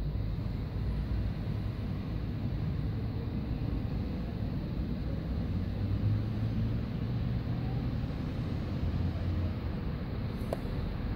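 Steady, muffled underwater rumble and hiss picked up by a submerged camera in a test tank, with a short click near the end.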